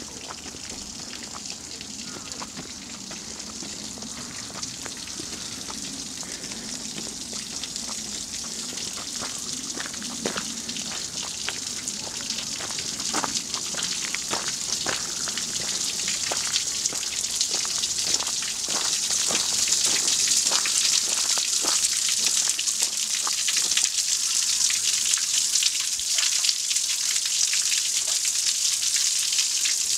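Water overflowing a stone platform basin, once used for washing steam-locomotive soot, and splashing into the pit below; the splashing hiss grows steadily louder as it is approached. Scattered clicks sound midway.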